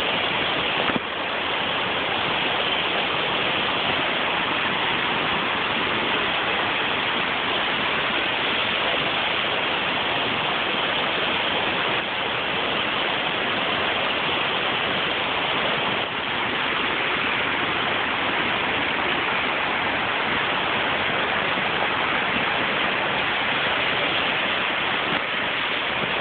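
Waterfall pouring into a rock pool: a steady, unbroken rush of water.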